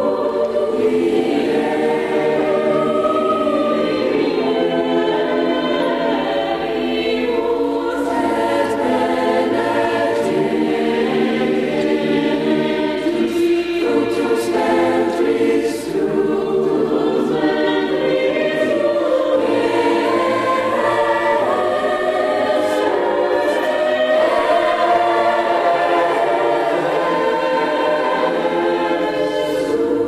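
Mixed high-school choir singing a slow sacred piece in held, overlapping chords.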